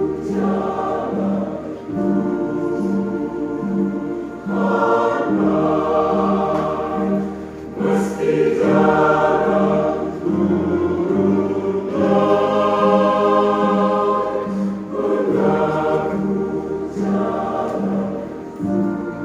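Church choir singing a sung piece in parts over an accompaniment with a steady pulsing beat, about two pulses a second.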